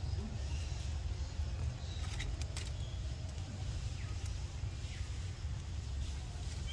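Fluctuating low rumble of wind buffeting the microphone, with a few faint, short high chirps and small clicks over it.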